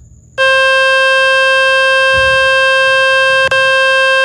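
Loud steady buzzing tone from a speaker-cleaning website, played on a phone to shake dust and water out of its loudspeaker. It starts about half a second in and holds one pitch, with a brief break near the end.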